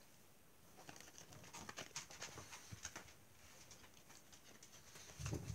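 Faint rustling and light taps of paper cards being slid and laid down on a cloth-covered table, with a soft low thump near the end.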